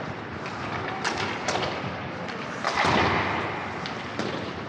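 Indoor ice hockey sounds: scattered sharp clacks and knocks of sticks and puck over steady rink noise, with a louder thud just under three seconds in.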